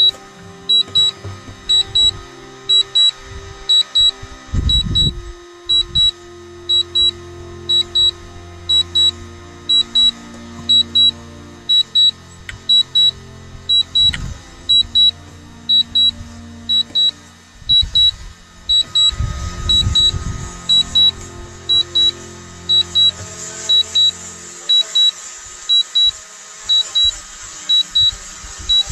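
High-pitched electronic double beep repeating about once a second, the warning alert of a DJI Mavic Pro drone's controller, over background music.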